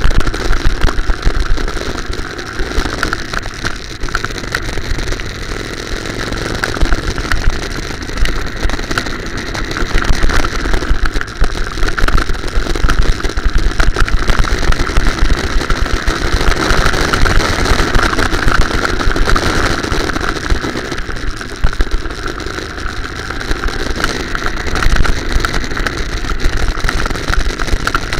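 Go-kart engine running continuously, heard from on board the kart, its note rising and falling as the kart is driven round the track, over a heavy rumble.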